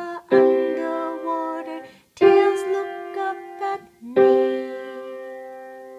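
Piano playing three chords about two seconds apart, each struck and left to ring, the last one held and fading.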